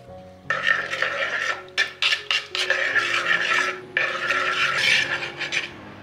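A metal spoon stirring and scraping against the bottom of a bamboo bowl, mixing powder into a little liquid. The strokes are quick and rasping, with a few short pauses, and begin about half a second in.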